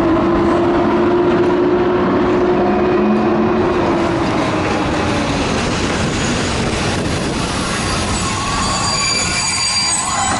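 Passenger coaches behind a PKP EP07 electric locomotive rolling past on the rails, a steady rumble of wheels and running gear. A steady tone fades out after about four seconds, and thin high wheel squeals come in near the end.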